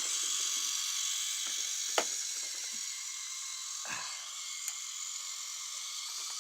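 Battery-powered Geo Trax toy train's small electric motor and plastic gearbox whirring steadily as it runs along the track, with an occasional click. It is running slowly on weak batteries.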